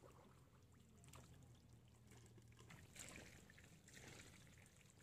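Faint splashing and squelching of shallow muddy water, with a brief louder splash about three seconds in.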